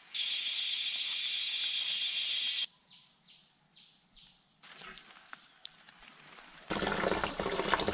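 A steady, loud, high-pitched insect drone from the riverside forest, which cuts off after about two and a half seconds. A few short falling chirps follow, then scattered clicks and a louder rustling, scraping noise near the end.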